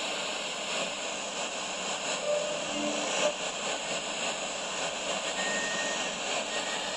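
Steady FM static hiss from a Ferguson 3T17 radio cassette player's speakers, with no station or music coming through.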